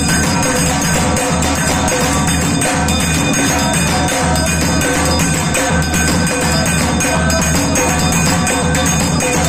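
Music with a steady percussive beat.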